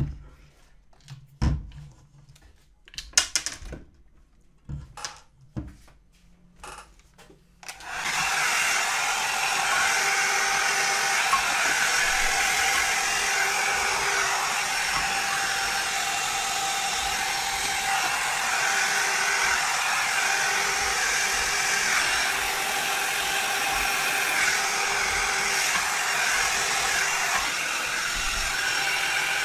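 A few scattered knocks and clicks as parts are handled. Then, about eight seconds in, a hair dryer switches on and runs steadily, blowing hot air into the opened deck of an electric scooter to dry out water that got in when it was washed.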